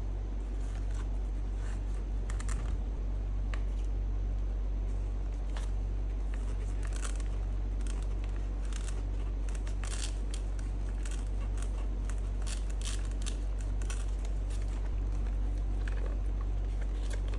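Hands working on the helmet's speaker wiring and padding: scattered clicks, crinkles and scrapes of plastic, cable and foam being handled, over a steady low hum.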